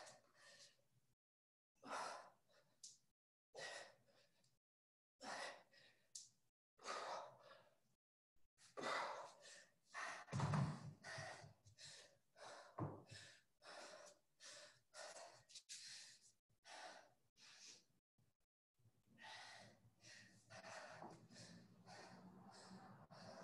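Faint, hard breathing of a person in the middle of a workout: quick exhales about once a second, with a louder thump about ten seconds in.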